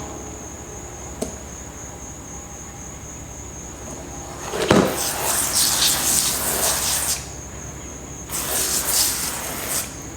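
Two long hisses, the first about two and a half seconds long and the second about a second and a half, over a steady high-pitched insect trill.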